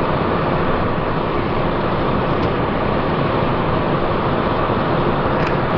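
Steady, even rush of airflow and engine noise inside the cockpit of a Cessna Citation Sovereign business jet climbing out after takeoff.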